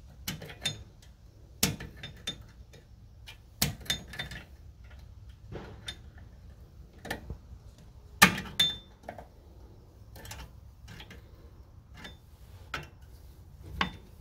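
Needle-nose pliers clinking and scraping against the metal retaining clip and hardware of drum-in-disc parking brake shoes as the clip's tabs are bent over: irregular sharp metallic clicks, the loudest a little past the middle.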